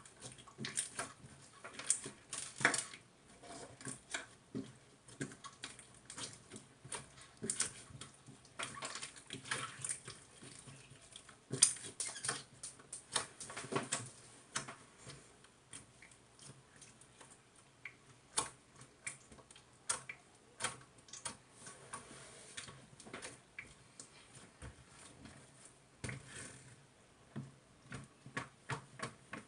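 Irregular light clicks and taps, coming unevenly with a busier, louder stretch partway through.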